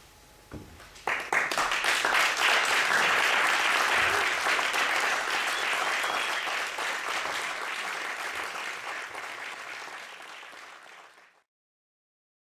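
Audience applauding, starting about a second in after the last classical guitar note has died away, slowly thinning, then cut off abruptly near the end.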